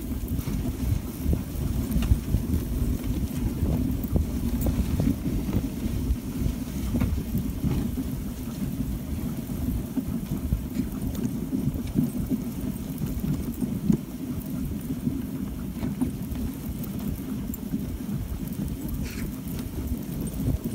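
Dog sled running over packed snow behind a husky team: a steady low rumble from the runners, mixed with wind on the microphone, with a few light knocks.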